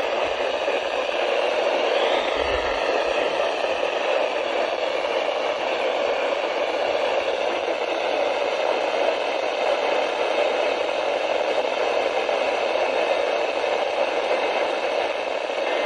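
Steady hiss of radio static from a receiver, with faint steady tones underneath.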